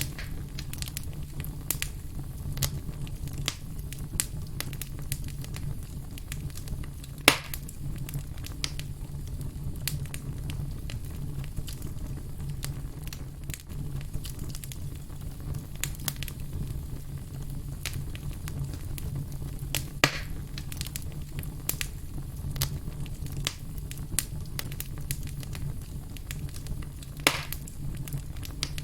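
Wood fire crackling steadily: a constant patter of small snaps over a low, even rumble, with three louder pops spread through it.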